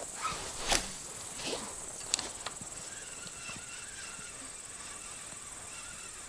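Quiet outdoor river ambience: a few short clicks and knocks in the first two and a half seconds, then a faint steady hiss with faint high chirping.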